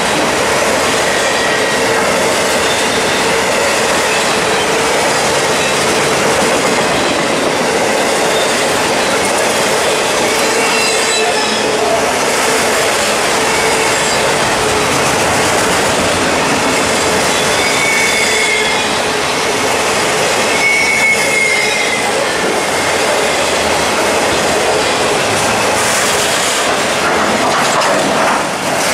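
Freight train of autorack cars rolling past at close range: a steady, loud rumble of steel wheels on rail, with short high-pitched wheel squeals a little past halfway.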